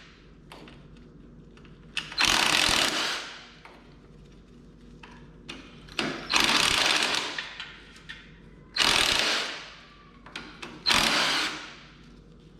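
Cordless power tool spinning off the valve cover bolts of a Kohler Courage 19 engine, run in four short bursts of about a second each with small clicks between them.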